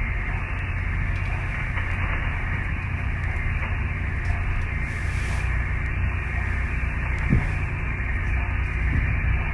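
Steady low drone with an even hiss over it, the running noise inside a fishing vessel's wheelhouse. A single short knock comes about seven seconds in.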